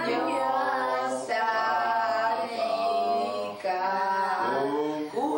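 Several voices, a child's among them, singing a birthday song together unaccompanied, in long held notes.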